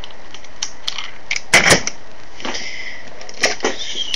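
Hard plastic toy vehicle pieces from a Power Rangers S.P.D. Megazord set being handled on a wooden table: a few sharp clicks and knocks, the loudest about a second and a half in and two more near the end, over a steady hiss.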